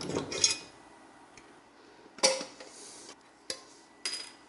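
Metal hand tools, a small steel vise and tin snips, being handled and set down on a workbench: a quick cluster of clinks at the start, then three separate clanks in the second half, some ringing briefly.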